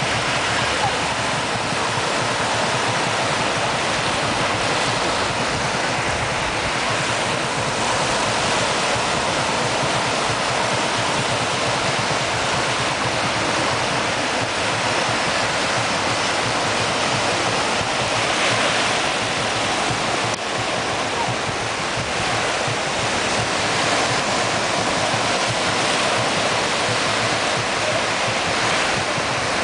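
Small sea waves breaking and washing up on a sandy beach: a steady rush of surf.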